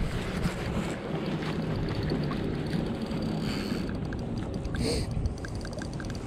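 Wind buffeting the microphone, with water moving around a kayak. A few faint light ticks come in the second half.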